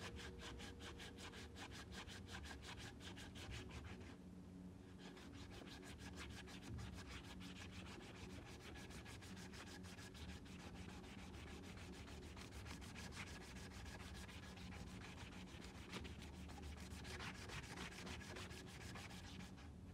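Sandpaper rubbed by hand back and forth over a wooden knife handle in quick, even rasping strokes, smoothing the wood. There is a short lull about four seconds in.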